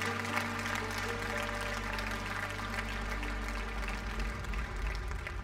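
Audience applauding over the last held chord of a song, which fades out about four seconds in.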